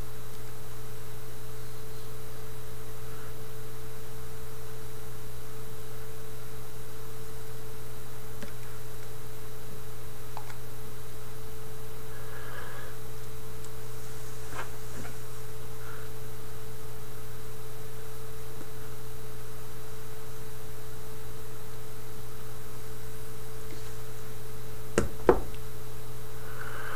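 Steady electrical hum, a low drone with a thinner higher tone above it, holding constant throughout, with two short soft knocks near the end.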